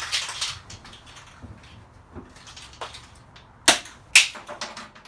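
Two sharp knocks about half a second apart, with a few fainter clicks and taps around them.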